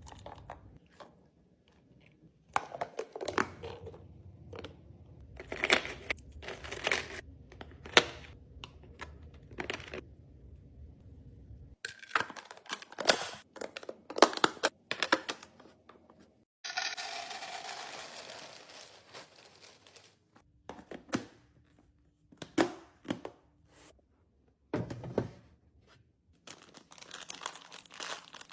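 Restocking handling sounds: containers, lids and packaging picked up and set down, giving a run of clicks, knocks and crinkling, with a steady rushing noise for about four seconds just past halfway.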